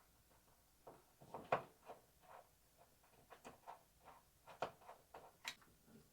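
Faint, irregular metal clicks and light scrapes of a screwdriver backing the screws out of an old door lock, with the loudest click about one and a half seconds in.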